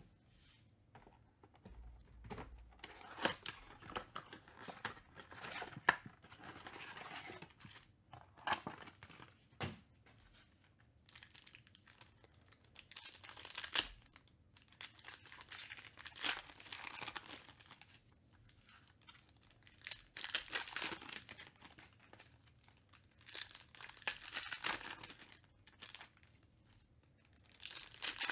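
Foil trading-card packs from a Panini Mosaic basketball blaster box being torn open and their wrappers crinkled. The tearing and rustling comes in spells every few seconds, with quiet gaps between.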